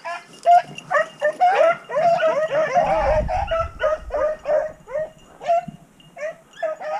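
Rabbit hounds baying in a rapid string of short, overlapping yips and barks, thickest in the middle, the way a pack gives tongue while running a rabbit's track.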